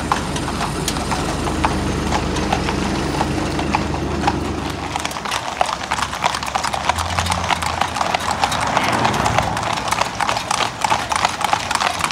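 Hooves of a feathered cob pulling a cart, clip-clopping steadily on a tarmac road. A low steady hum lies under the first five seconds and then drops away.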